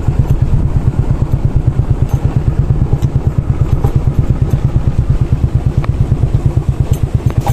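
Motorcycle engine running steadily at low revs with a quick, even pulsing beat.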